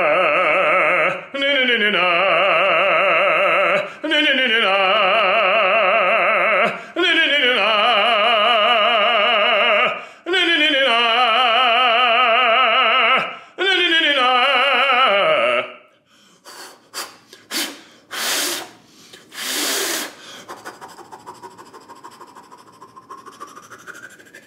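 Male operatic baritone singing warm-up vocal exercises: six phrases of held notes with strong vibrato, each ending in a descending run. About 16 s in the singing stops and a few loud breaths follow.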